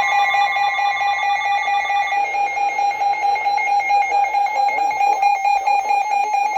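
Emergency alert attention tones sounding from alert receivers: steady, piercing electronic tones, with a fast chopping pulse running through them. One of the tones drops out about two seconds in, and a single tone carries on.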